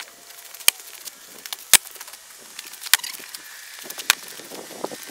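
Wooden boards knocking together as they are laid one on another onto a stack: four sharp wooden clacks about a second apart, the second the loudest.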